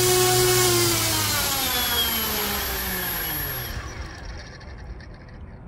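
Electric motor driving a 3D-printed three-blade 11x6 propeller on a thrust test stand. It holds a steady whine at full power for about a second, then spins down, the whine falling in pitch and fading out about four seconds in.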